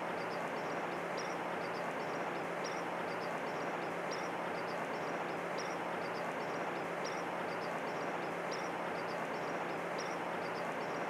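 Steady outdoor background noise with a constant low hum, and faint, quick high-pitched chirps recurring irregularly throughout.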